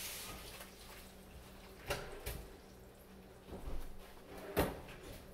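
Running tap water dies away at the start, then about four scattered sharp knocks and clunks from things being handled, the loudest near the end.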